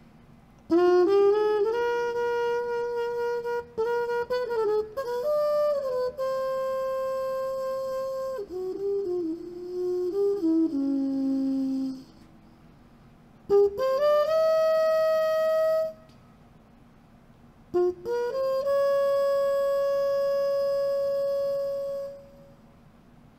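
Unaccompanied trumpet playing slow phrases. A long phrase of several notes steps down to a low note, then a short rising phrase ends on a held note. After a pause comes one long sustained note that fades out.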